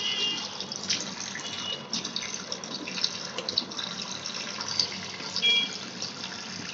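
Tap water running into a sink as cut pieces of hilsa fish are rinsed by hand, with irregular splashes and small clicks as the pieces are moved.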